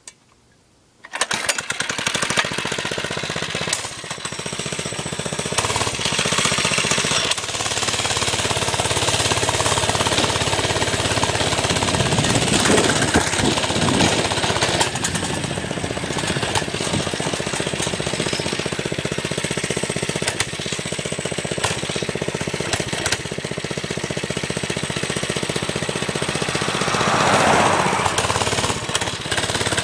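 Baja mini bike's small single-cylinder engine running steadily under way, a loud rattly drone that comes in about a second in.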